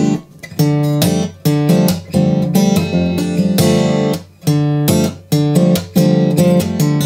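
BSG D27F dreadnought acoustic guitar played fingerstyle in an open alternate tuning with a capo at the second fret: thumbed bass notes and picked strings ringing together, with sharp strums about every half second.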